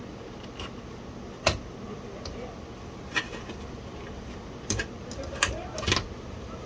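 Several sharp clicks and knocks of floppy drive parts being handled and fitted together during reassembly, the loudest about a second and a half in and a few more close together near the end, over a steady low background hum.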